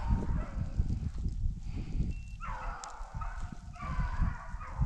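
Rabbit hounds baying: several drawn-out calls about a second long each, the sound of a pack running a rabbit's trail, over a rough low rumble.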